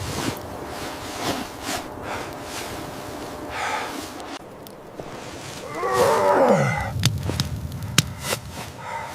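A dog giving a drawn-out whine that slides down in pitch into a low groan, about six seconds in, after a shorter, fainter call a few seconds earlier. Scattered sharp clicks and crackles, one loud click a couple of seconds after the whine.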